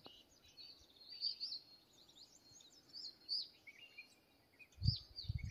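Faint birdsong: short chirps and whistles from several small birds. A few low thumps come near the end.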